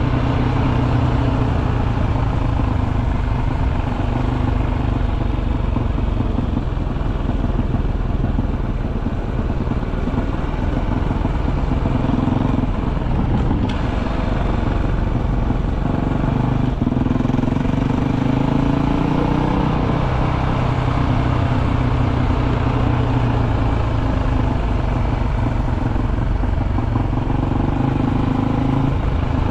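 Off-road motorcycle engine running steadily while riding a dirt road, its pitch rising and falling a little with the throttle partway through.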